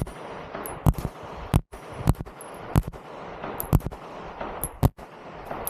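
9mm gun fired in single shots, about seven sharp cracks at uneven gaps of half a second to a second, each followed by ringing echo.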